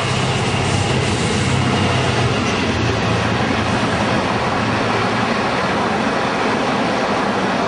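A diesel freight locomotive passes close by with a steady engine drone. It is followed by a long train of intermodal container wagons going by at speed with continuous wheel and rail noise.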